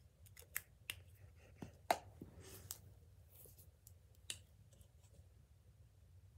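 A few faint, sharp clicks and brief rustles from hands handling small objects close to the microphone. The loudest click comes about two seconds in, and a few scattered clicks follow.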